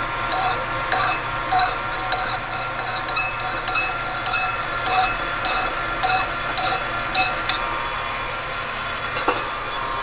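Hand file stroked against a shaft spinning in a South Bend lathe, rounding over the shaft's end: a rasping stroke nearly twice a second over the steady hum of the running lathe. The strokes stop about three-quarters of the way through, leaving the lathe running on its own.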